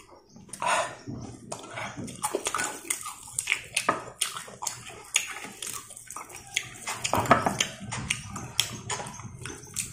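Close-up eating sounds: chewing and wet mouth smacking over crispy deep-fried chicken and rice, with many sharp, irregular clicks and crunches.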